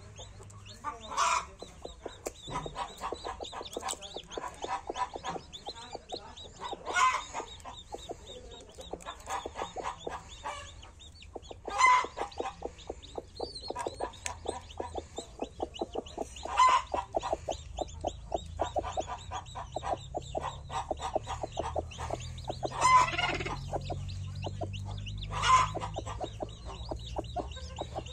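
Chickens clucking in quick, continuous runs of short clucks, with about six louder, longer calls spread across the stretch.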